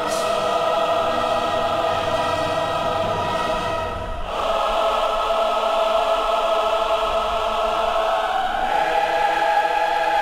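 Large choir singing a hymn with brass band accompaniment in long held chords. A cymbal crash comes at the start, there is a short break about four seconds in, and a new chord begins near nine seconds.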